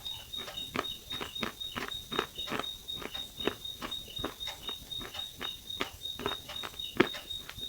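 Close-miked chewing: short, sharp crunches at about three a second, one louder crunch near the end, over a faint steady high-pitched tone.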